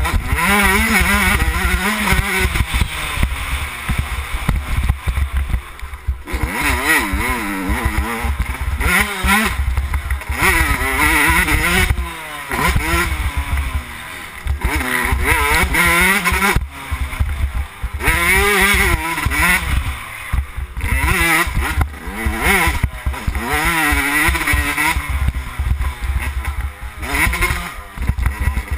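2011 Yamaha YZ125's 125 cc single-cylinder two-stroke engine revving up and down as the bike accelerates, shifts and rolls off the throttle in quick succession, with several short drops where the throttle is closed, over a steady low wind rumble.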